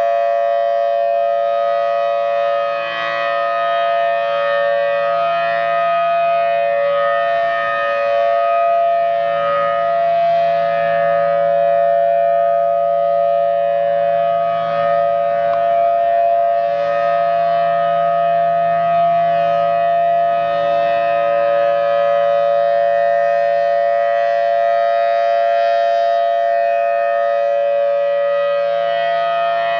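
Federal Signal Thunderbolt 1000T outdoor tornado warning siren sounding a steady test tone at full pitch. Two close notes are held together with a rich set of overtones, and the loudness wavers slightly without ever dropping out.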